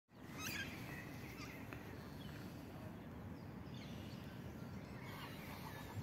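Faint outdoor pond-side ambience: a low steady rumble with scattered distant birdsong chirps, and near the end a rapid run of short repeated notes.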